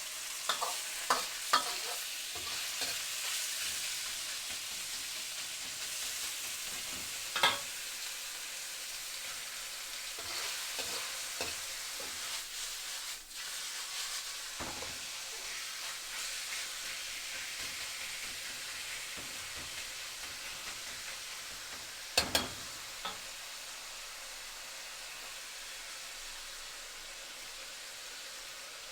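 Food frying in a pan with a steady sizzle, stirred with a utensil that knocks and scrapes against the pan. A few sharp clacks stand out: several in the first two seconds, a loud one about seven seconds in, and another pair about twenty-two seconds in.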